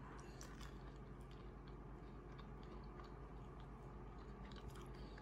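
Faint chewing of a soft chocolate cupcake, with small mouth clicks over a low steady hum.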